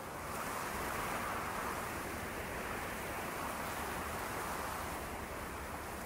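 Steady rushing of wind in a snowstorm.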